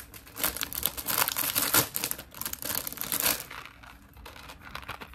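Plastic jewelry packaging crinkling and crackling as it is handled, a dense run of quick crackles for about three seconds that then dies down to lighter rustling.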